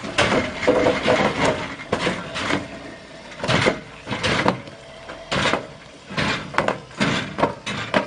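Concrete pipes dropping off the back of a flatbed trailer onto the ground as the truck pulls out from under them: a run of irregular knocks and bangs, often two in quick succession.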